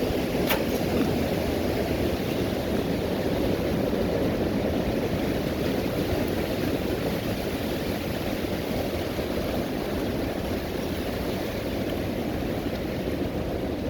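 Strong storm wind blowing steadily and buffeting the microphone in a deep rumble, with one brief click about half a second in.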